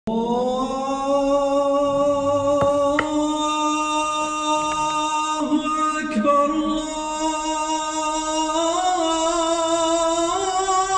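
Background music: a vocal nasheed, one voice holding long, drawn-out notes that step up slightly in pitch near the end.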